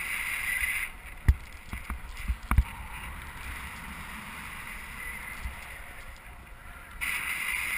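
Wind rushing over a GoPro's microphone in paragliding flight: a steady low rumble with a few sharp buffeting thumps, and a brighter hiss swelling near the start and again near the end.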